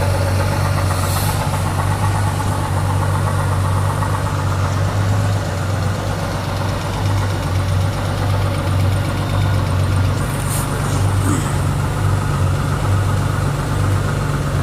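A 2019 Honda Gold Wing's flat-six engine idling steadily, with an abnormal noise from the right side after the bike fell over. The mechanic traces the noise to a broken line under the right-hand valve (tappet) cover.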